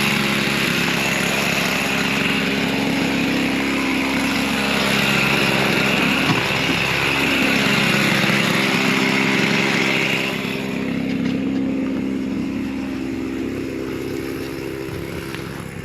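Small vehicle engine running steadily under a rushing hiss of ride noise. About ten seconds in, the hiss and the engine ease off.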